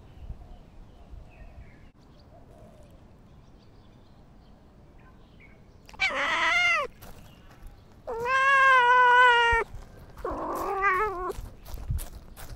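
A domestic cat meowing three times, loud and close: a short falling meow, then a long drawn-out one, then a wavering one. A quick run of light taps follows near the end.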